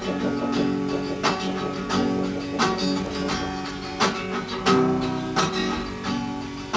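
Acoustic guitar playing an instrumental passage of strummed chords, each strum ringing on until the next.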